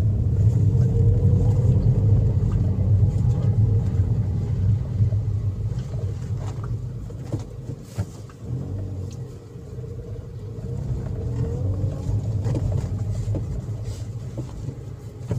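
Engine and road hum heard from inside the cabin of a 2009 Toyota Vios on the move: a steady low drone, loudest in the first few seconds, easing off about halfway and building again near the end. The engine is pulling freely on a road test after repair, breathing well under throttle.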